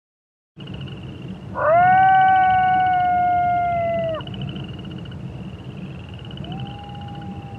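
Wolf howling: one long, loud call that swoops up to a steady pitch, holds for about two and a half seconds and cuts off sharply. A second, fainter and shorter howl follows near the end.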